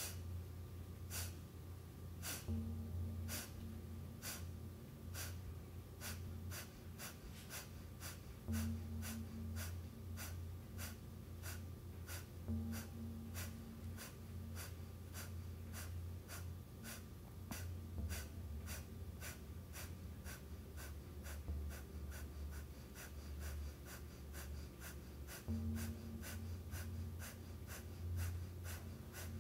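Kapalabhati breathing: a rapid series of short, forceful exhales through the nose, each a sharp puff as the navel pulses in. The puffs quicken from about one a second to about two a second.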